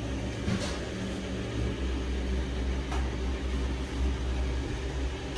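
Samsung washing machine running steadily in the last minute of its cycle: a low motor hum with two brief faint swishes, about half a second and three seconds in.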